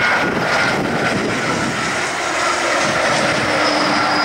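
Dassault Falcon 2000LX business jet on landing approach, its twin Pratt & Whitney PW308C turbofans running at approach power: a steady rush of jet noise with a whine over it.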